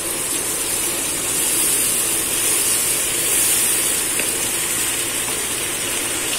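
Ground onion, tomato and yogurt masala paste sizzling in hot oil around beef koftas in a wok, a steady hiss: the masala being fried down (bhuna) for the curry.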